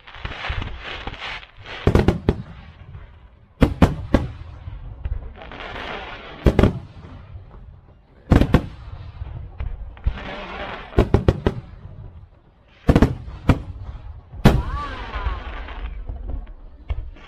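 Fireworks bursting overhead: sharp bangs at irregular intervals, often two or three in quick succession, with people's voices in the gaps between the bursts.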